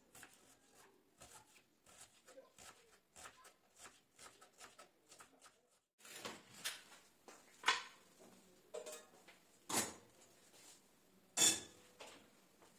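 Kitchen knife chopping onion on a wooden cutting board: light, quick taps at about three a second. About halfway the tapping stops, followed by a few louder, separate kitchen knocks and clatters.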